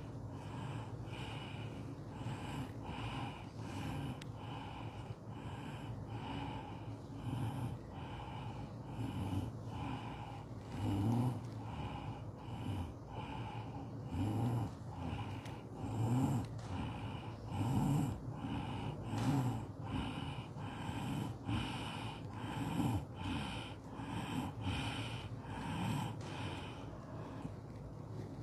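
A group of people doing loud rhythmic dhikr together: forceful, breathy chanted syllables repeated in unison in a steady rhythm, about one and a half a second, with some voices louder now and then.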